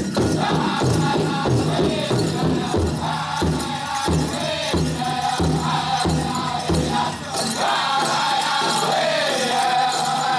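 Powwow drum group singing in high voices over a steady, evenly spaced big-drum beat. The drumbeat drops out about seven seconds in while the singing carries on, its pitch falling.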